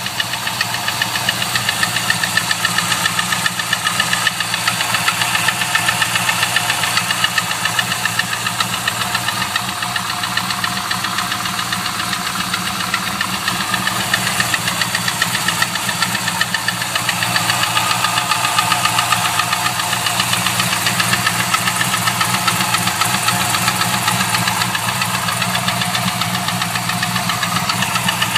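GM LS1 5.7-litre V8 idling steadily with a regular, rapid knock running through it. The owner suspects a failed gudgeon (piston wrist) pin.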